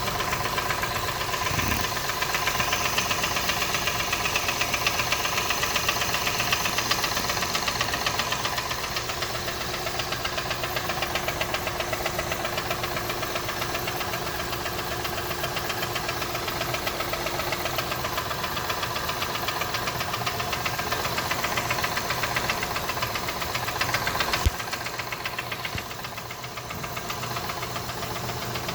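2012 Acura MDX's 3.7-litre V6 running steadily with a rapid, even knocking from the engine. A single louder thump near the end.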